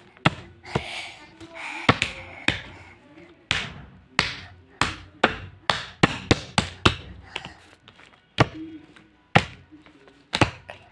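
A series of sharp taps and knocks from hands handling objects: scattered at first, then a quick run of about three a second through the middle, with a few more near the end.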